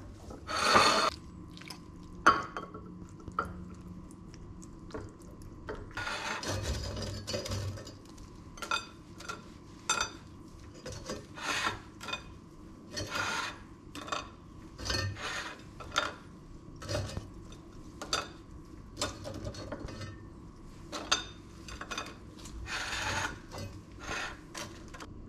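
Kitchen handling sounds: toast slices lifted out of a metal air fryer basket and laid on a ceramic plate, and a ceramic bowl set on that plate. It is an irregular run of short clinks, knocks, scrapes and rubs, with a couple of longer scraping stretches.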